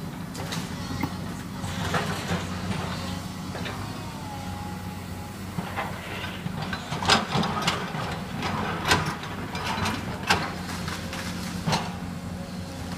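Excavator demolishing a house: sharp cracks and crashes of breaking timber and debris, several in the second half, over a steady low engine hum.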